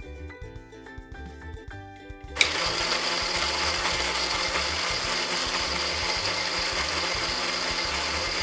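Toy blender switched on with a click a little over two seconds in, then running with a loud, steady whirring noise over background music.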